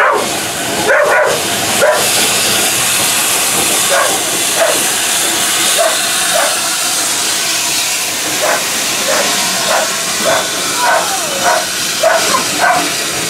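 Steam hissing steadily from the departing USATC S160 2-8-0 locomotive 2253 as its train of carriages rolls out of the station. A dog barks now and then, several times near the end.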